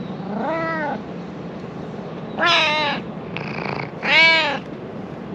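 Domestic cat meowing three times, each meow about half a second long, the second and third much louder than the first.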